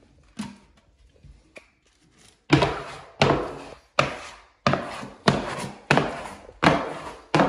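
A hand knocking on a wallpapered wall at the baseboard, pressing a spliced wallpaper patch into place. About eight firm thuds at an even pace of roughly one and a half a second, starting a couple of seconds in.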